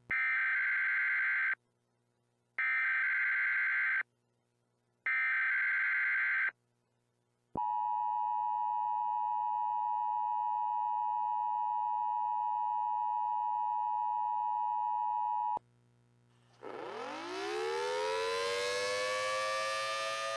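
Emergency alert tones: three short bursts of data tones a second apart, then a steady two-note attention tone held for about eight seconds. About a second after it stops, an outdoor warning siren starts winding up, its pitch rising and levelling off.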